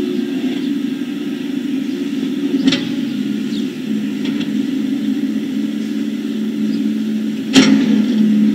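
A steady low machine hum, with two sharp knocks about five seconds apart.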